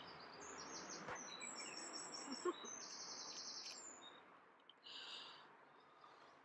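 Faint songbirds chirping and twittering in quick high phrases, with a second burst of song about five seconds in, over a soft even rushing noise that fades after about four seconds.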